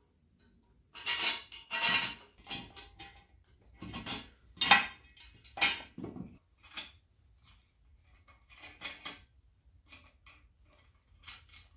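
Steel parts of a buffer-stop frame clanking and hardware clinking as a heavy steel beam is set in place and bolts are pushed through its holes by hand. The loudest clanks come in the first six seconds; lighter clicks and clinks follow.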